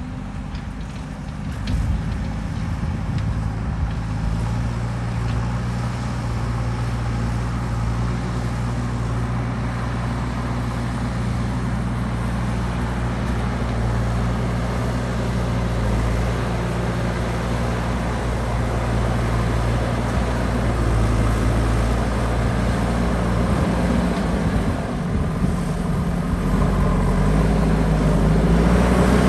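JCB backhoe loader's diesel engine running steadily while working, rising in pitch and getting a little louder near the end as it revs.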